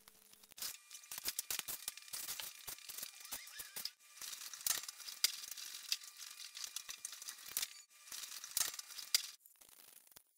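Paint roller working across a ceiling: a dense, sticky crackling of many short clicks, with a faint steady whine under it. It starts about half a second in, breaks off briefly twice, and falls away near the end.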